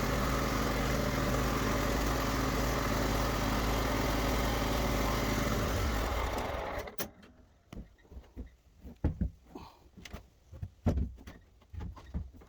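Lawn mower engine running steadily, then shutting off about halfway through, followed by scattered knocks and clicks.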